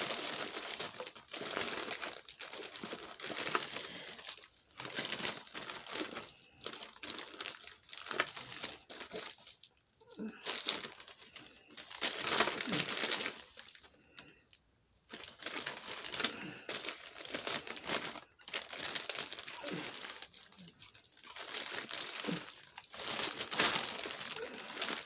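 A bag crinkling and rustling in irregular bursts as items are rummaged out of it, with a couple of short pauses.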